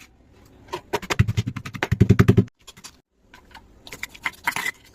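A fast run of sharp clicks or taps, about ten a second, loudest just before it stops at about halfway. A shorter, quieter run follows near the end.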